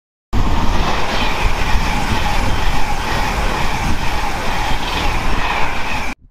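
Class 390 Pendolino electric tilting train passing close by at speed: a loud, steady rush of wheels on rail and air with a deep rumble. It starts suddenly and cuts off abruptly just before the end.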